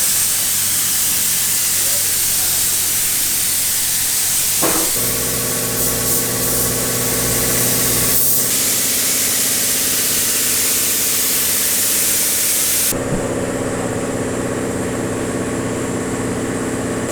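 Compressed air hissing steadily from an air tool, typical of a spray gun or air blow gun. About five seconds in, an air compressor's motor starts and runs with a steady hum. The hiss cuts off sharply near the end while the compressor keeps running.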